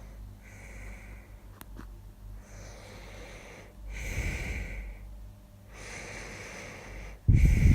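A person snoring in their sleep: a run of breathy snores about every second and a half, one with a low rattle about four seconds in, then a much louder, deep snort near the end.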